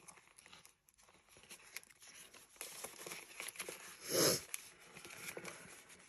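Soft rustling and crinkling of paper dollar bills and the clear plastic pockets of a ring cash binder as they are handled, with one louder, brief sound about four seconds in.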